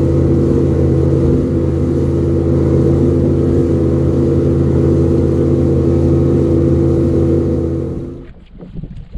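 A small fishing boat's motor running at a steady speed under way, a loud constant drone with wind and water hiss over it. It stops abruptly about eight seconds in.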